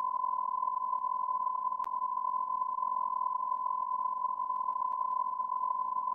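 Steady, high-pitched electronic beep tone held without a break, with a faint click about two seconds in.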